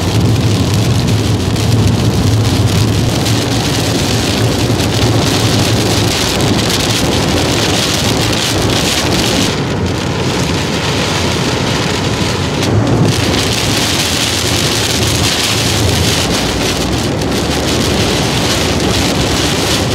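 Heavy downpour beating on a car's windshield and roof, heard from inside the moving car. Under it runs a steady low rumble from the car on the wet road.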